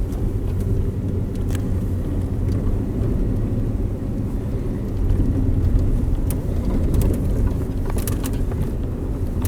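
Road and tyre rumble inside a 2012 Ford Expedition's cabin driving over a bumpy road, growing a little louder about halfway. Several brief clicks and rattles come from the interior trim, while the repaired handrest stays quiet.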